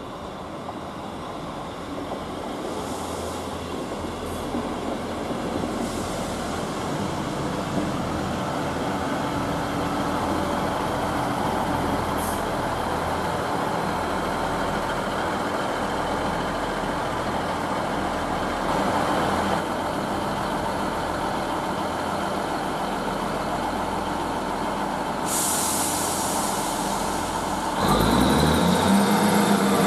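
Diesel multiple unit's engines running as the train passes. It gets louder over the first ten seconds, then holds a steady hum. A hiss comes in suddenly near the end, and shortly after a louder engine note rises in pitch.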